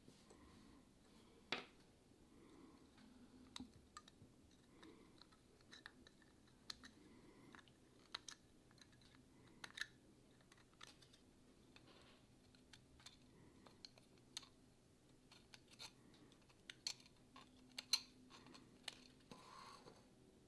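Irregular sharp little clicks and snips of flush cutters nipping leftover support material off a 3D-printed plastic part, with light clacks of the plastic pieces being handled.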